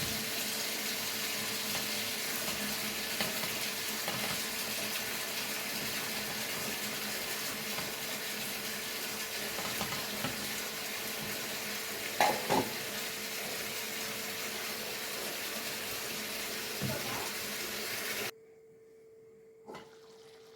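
Pot of chicken à la king in milk sauce hissing and bubbling steadily as it comes to the boil, with a couple of light knocks about twelve seconds in. The sound cuts off abruptly near the end.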